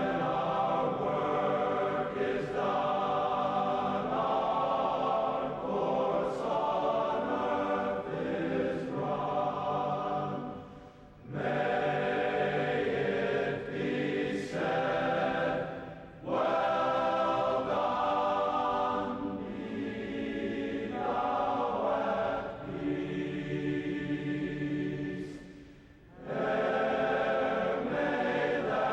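A choir singing slow held chords as background music, pausing briefly between phrases three times.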